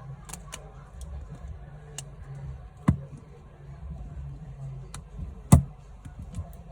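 Scattered small clicks and taps of plastic phone parts being handled as the middle housing is fitted onto the screen, with two sharper knocks about three and five and a half seconds in, over a steady low hum.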